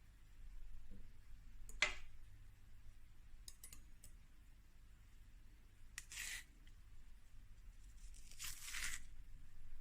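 A banana peel being pulled back in strips: two short tearing sounds about six and eight and a half seconds in, with a sharp click about two seconds in.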